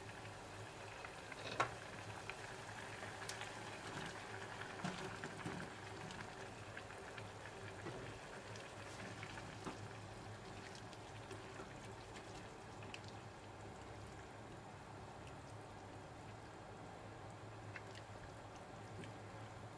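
Curry sauce simmering gently in a non-stick pot, bubbling faintly, with scattered light clicks and scrapes of a spatula stirring in the pot. A single sharp knock about one and a half seconds in is the loudest sound.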